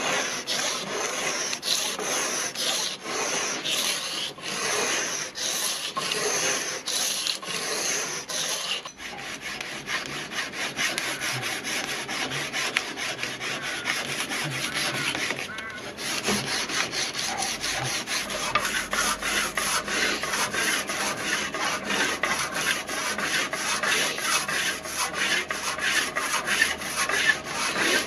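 Steel sword blade being hand-sanded with abrasive paper: rapid, even back-and-forth rubbing strokes, with short breaks about nine and sixteen seconds in.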